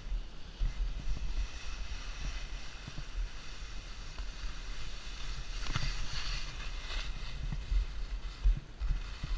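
Wind buffeting the microphone in gusts, with the hiss and scrape of skis sliding over snow that swells for a moment about six seconds in.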